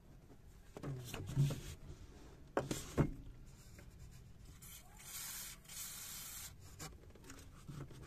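Aerosol grease can hissing in one burst of about a second and a half, about five seconds in, as grease goes onto the clutch cable end at the pedal to cure a noise when the clutch is pressed. Before the burst come a few handling knocks and rustles.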